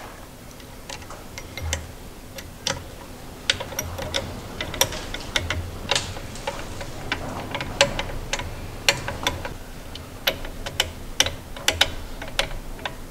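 Irregular metallic clicks and ticks of cap screws being set and turned with a hex-key driver, mounting a NEMA 34 stepper motor onto an aluminium Z-axis plate, with a few low handling knocks.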